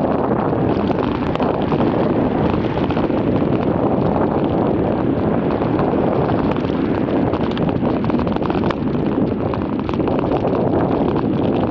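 Wind buffeting the microphone of a camera on a moving bicycle: a steady, loud rushing noise.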